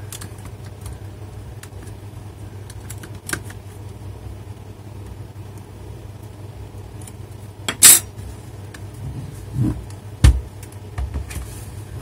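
Plastic clips of an Acer Aspire laptop's underside case snapping loose as the case is pried apart with a spudger: a few sharp clicks, the loudest about eight seconds in, then a couple of dull knocks. A steady low hum runs underneath.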